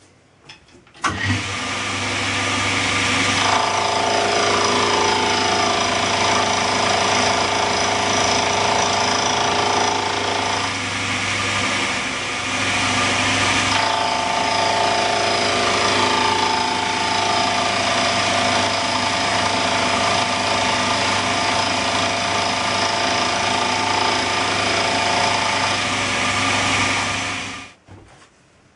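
Vertical milling machine starting up and running, its end mill cutting a tooth slot in a cast pulley blank. A steady motor hum carries a ringing whine from the cut in two stretches, the second longer, and the machine stops near the end.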